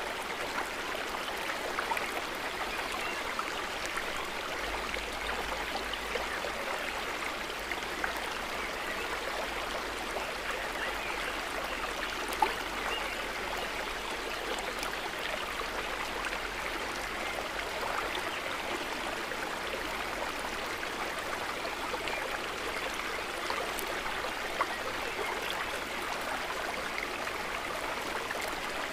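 Calm lake water trickling and gurgling softly in a steady wash, with small drips and a couple of slightly louder drips about 12 and 24 seconds in.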